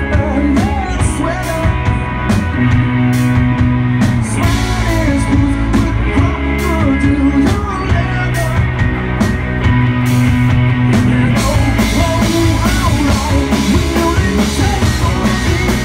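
Live indie rock band playing loudly: electric guitars and a drum kit keeping a steady beat.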